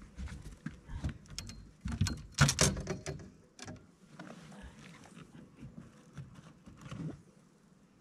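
Irregular knocks, thumps and clattering on a bass boat's deck as gear and the catch are handled, with a loud burst of rattling about two and a half seconds in and sparser knocks after that.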